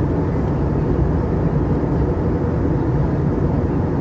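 Steady, deep rushing noise inside an airliner cabin in flight, from the engines and the air streaming past the fuselage, even and unchanging.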